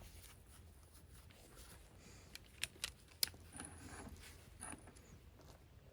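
A few faint clicks and some light scraping: tools and metal parts of a hydraulic cylinder being handled, otherwise quiet.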